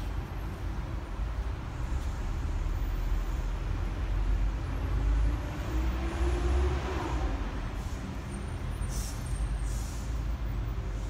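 Steady low rumble of city street traffic, with a heavy vehicle's engine note rising slowly as it pulls away, about midway through.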